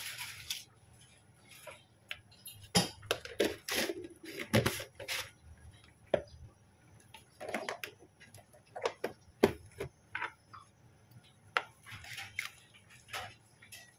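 Irregular light clicks and knocks of kitchen containers and utensils being handled, with a short rustle at the very start.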